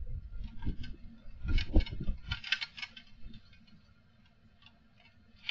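Gusts of strong wind buffeting a CCTV camera's microphone, with irregular ticking and rattling over low rumbles. The sound dies away to almost nothing for the last couple of seconds.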